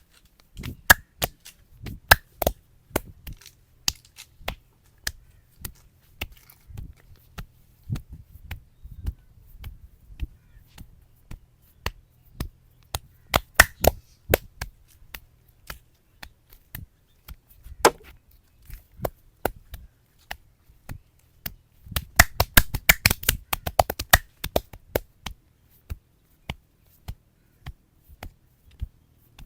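Hands striking the head during a traditional head massage: sharp, irregular slaps and chops, with a rapid flurry of strokes about two-thirds of the way through.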